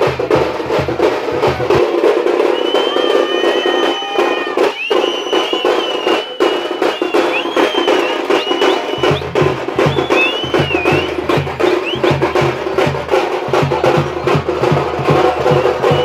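Tamil folk frame drums (thappu / tamate) beaten fast with sticks in a dense, driving rhythm. The deep drum beats drop out for several seconds and then come back, with shrill wavering whistles over the drumming in the middle.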